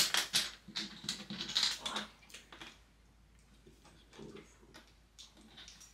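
Small plastic Lego bricks clicking and rattling as they are picked through and pressed together on a tabletop. The clicks are busy for the first couple of seconds, then sparser and fainter.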